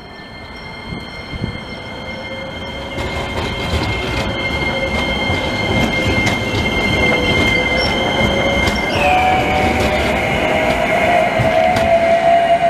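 CAF Urbos AXL low-floor tram approaching and passing close by, its wheels squealing in two steady high tones on the curved track over a rumble that grows louder. About nine seconds in, the squeal shifts pitch and a lower whine starts rising slowly as the tram goes past.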